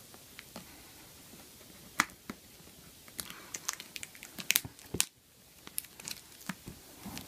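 Scissors cutting and pulling open packaging: scattered sharp snips and clicks with crinkling and tearing. The loudest snap is about two seconds in, with a quick cluster of them around four and a half to five seconds.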